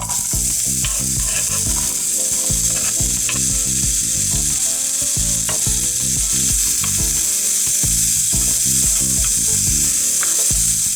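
Finely chopped onion frying in olive oil in a small pan: a steady, loud sizzle, with a few light clicks through it.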